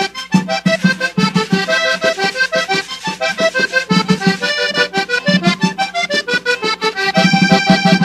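Vallenato instrumental break: a diatonic button accordion plays quick melodic runs over a steady low beat, with no singing.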